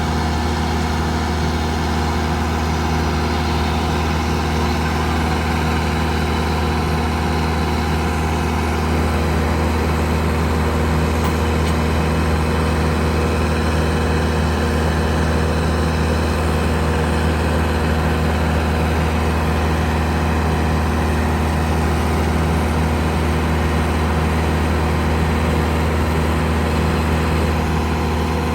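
Heavy diesel engine of earthmoving machinery (bulldozer or dump truck) running steadily at a constant pitch, with a strong low hum.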